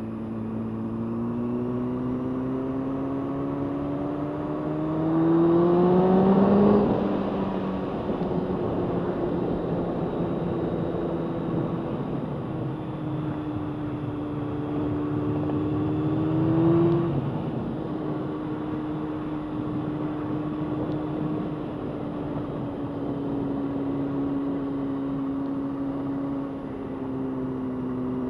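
Honda CBR600F4i's inline-four engine heard onboard while riding. The revs climb to a peak about six to seven seconds in and drop, climb again to a second peak near seventeen seconds and drop, then settle into a steady cruise, with constant wind rush on the mic.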